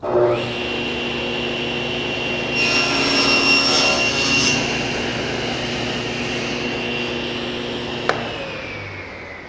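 SawStop table saw starting up and running with a steady high whine. About two and a half seconds in, its combination blade cuts a partial-depth crosscut kerf across a poplar board for about two seconds. Near the end there is a click, and the whine falls in pitch as the blade spins down.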